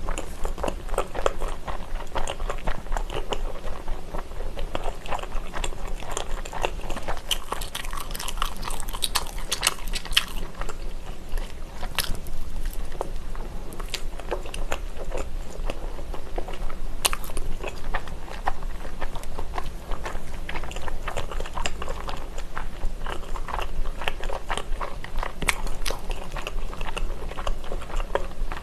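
Close-miked chewing and biting of an octopus fish cake bar (fish cake with minced octopus and vegetables): soft, wet mouth sounds with many small irregular clicks and a few sharper ones.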